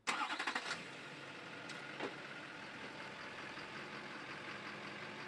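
Chevrolet Silverado 2500HD's Duramax V8 turbodiesel starting up: a short burst of rapid cranking and firing, then settling into a steady idle.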